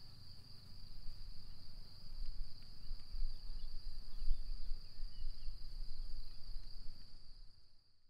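Crickets chirring: one steady, high-pitched trill that does not break, over a low uneven rumble, the whole fading out near the end.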